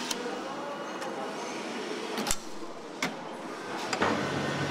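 Helicopter assembly shop ambience: a steady background noise with a few sharp clanks and knocks, the loudest about two seconds in. A low steady hum joins near the end.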